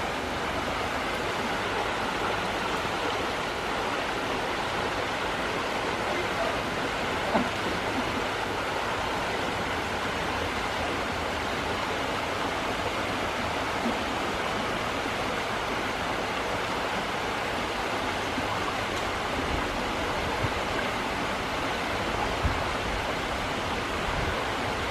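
Shallow rocky creek flowing over stones: a steady, even rush of water, with a brief faint knock about seven seconds in.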